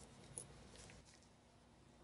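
Near silence, with a small click about a third of a second in and a few fainter ticks just before a second in, as gloved hands handle small battery parts.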